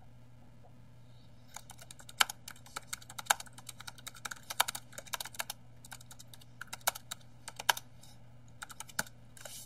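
Typing on a computer keyboard: a quick run of key clicks in bursts with short pauses, starting about a second and a half in.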